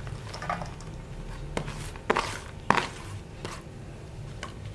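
Handling knocks against a stainless steel mixing bowl as shredded cabbage is tipped in from a plastic chopping board and a metal spoon is put into the bowl: five or six sharp knocks and taps, the two loudest between two and three seconds in.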